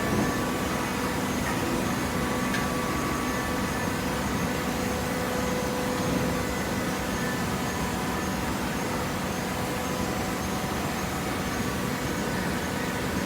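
Hydraulic paper and cardboard baler running: a steady machine noise with a faint, even hum.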